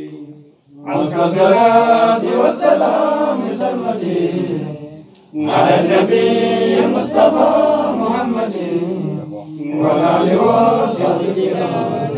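Men's voices chanting an Ethiopian Islamic menzuma, a mawlid praise chant, in three long phrases with short breaks between them.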